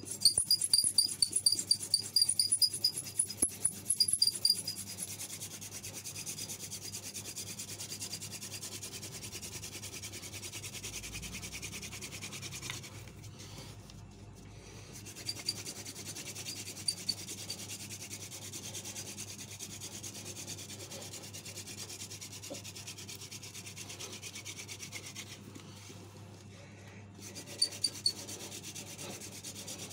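Wooden hand-drill spindle spun back and forth between the palms, grinding in the socket of a small fire board: a continuous rapid rubbing that builds the friction heat for a fire. There is high squeaking over the first few seconds and again near the end, and the rubbing drops away briefly twice.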